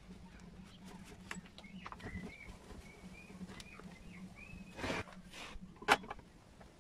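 Light taps and clicks of plastic engine parts as a Honda lawn mower engine is handled and turned over, with a short scraping rustle about five seconds in and a sharp knock about a second later. Birds chirp faintly in the background over a steady low hum.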